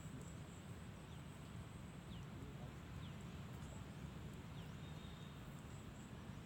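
Brief falling bird chirps, repeated about once a second, over a steady low outdoor rumble, with a faint steady high tone behind them.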